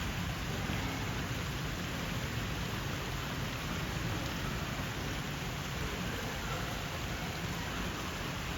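Steady, even background noise with no distinct events, of the kind rain or outdoor ambience makes.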